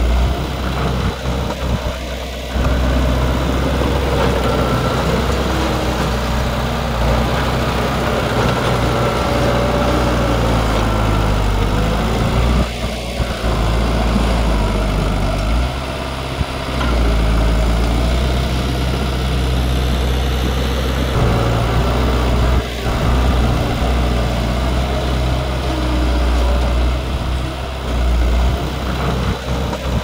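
Heavy diesel engine of earthmoving machinery running steadily with a deep, loud hum. It changes briefly a few times, around a third of the way in and again about halfway.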